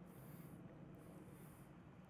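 Near silence: faint steady background hum with no distinct event.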